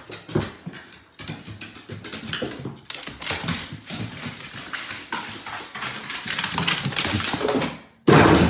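A dog's noises mixed with irregular clattering and knocks, changing abruptly twice as the sound cuts.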